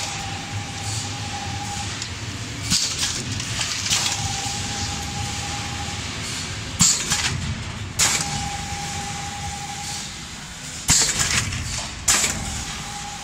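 Multilane freeze-pop filling and sealing machine running in repeating cycles of about four seconds. A low mechanical hum runs throughout, with short sharp hisses of compressed air from its pneumatic cylinders, in pairs each cycle. A thin steady whine lasts about two seconds in each cycle.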